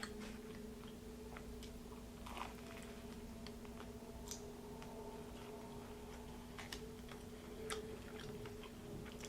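Chewing a crispy fried vegetable samosa close to the microphone: quiet, scattered crunches and mouth clicks. A faint steady hum runs underneath.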